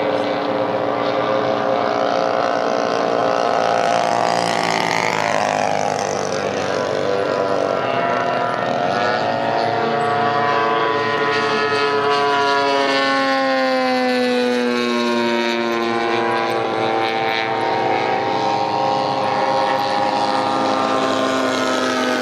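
Engine of a radio-controlled model aircraft flying past, a steady drone of several pitches that slides up and then slowly falls as it passes, about nine seconds in.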